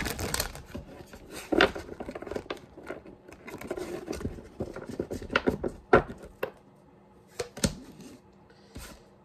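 Tarot cards being shuffled and handled: a dense rustle of cards at the start, then scattered sharp taps and clicks as the deck is squared and a card is set down on a wooden tabletop.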